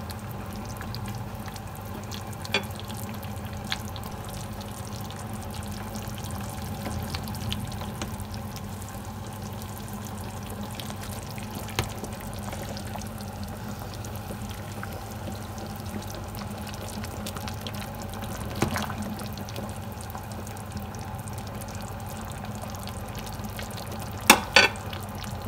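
Pot of pork sinigang simmering on the stove: a steady bubbling with a low hum under it, broken by a few short sharp clicks, the loudest pair near the end.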